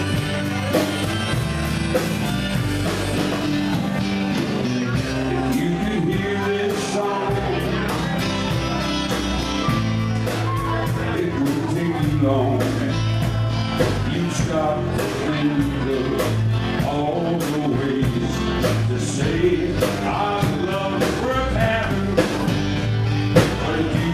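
Live acoustic band: a man singing lead over strummed acoustic guitars.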